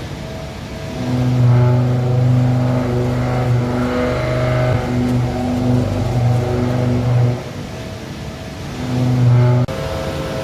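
5-axis CNC machine machining a metal collar from a single piece of metal: a loud, steady low hum that drops out and comes back several times as the machine works, with a brief hiss of cutting about four seconds in. The sound changes abruptly near the end.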